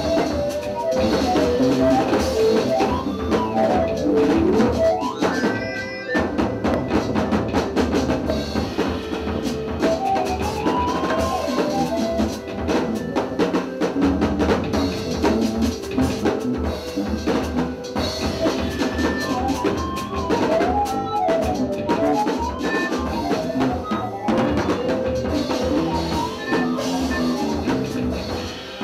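A live improvising jazz trio playing: busy drum kit with continual strikes, bass underneath, and meandering keyboard melody lines rising and falling.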